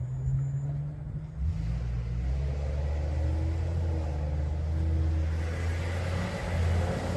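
A motor vehicle running: a steady low engine hum with tyre hiss that grows louder over the second half.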